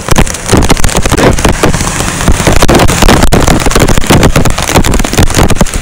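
Cars and a pickup truck driving through floodwater on a street, tyres splashing and throwing up spray, over falling rain. A loud, rough wash of noise with many crackles throughout.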